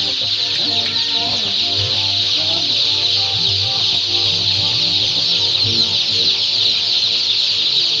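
A large flock of day-old chicks peeping together: a dense, continuous, high-pitched chorus of overlapping chirps.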